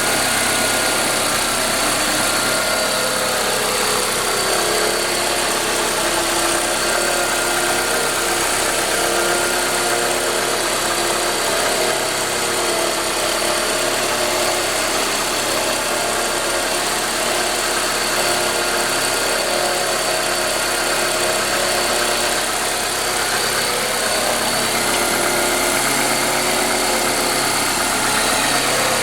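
Ford Escort 2.0 L four-cylinder engine idling steadily, making the strange noise its owner is asking about.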